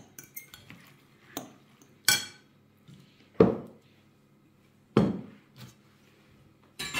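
A glass mixing bowl and kitchen utensils knocking and clinking: about six separate sharp knocks with a short ring, spaced irregularly, the loudest two in the middle part.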